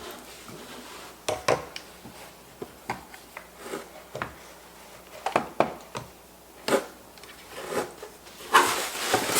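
Vacuum parts and packaging being handled: scattered light clicks and knocks, then a stretch of rustling near the end.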